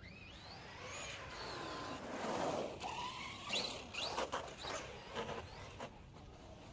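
Electric drivetrain of an RC truggy running a 2000kv brushless motor on a 6S LiPo, whining up and down in pitch as it drives past. The sound is loudest about two and a half seconds in, with a few sharp knocks in the following couple of seconds.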